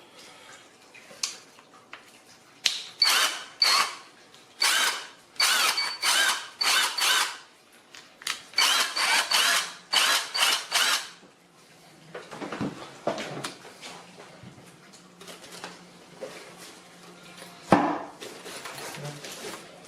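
Cordless brushless impact wrench motor whirring in a dozen or so short trigger bursts, spinning free with no load. Then quieter handling noise with a low hum and a single click near the end.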